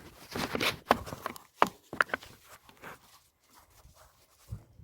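Hands working on parts in a car's engine bay: irregular clicks, light knocks and rustles, busiest in the first two seconds and thinning out later.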